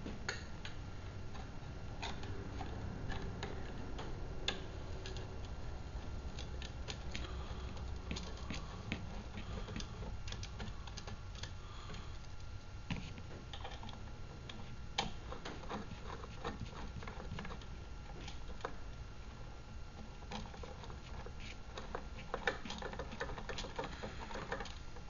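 Scattered small metallic clicks and taps of bolts being started by hand through an aluminium side plate into the tapped ends of aluminium rods, over a low steady hum.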